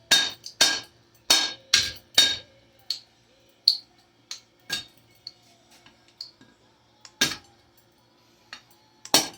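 A metal ceiling fan's housing struck repeatedly to knock out its reverse switch, each blow a sharp clank with a metallic ring. Five hard blows come quickly at first, then lighter, spaced-out taps, with a hard blow a little past seven seconds and another near the end.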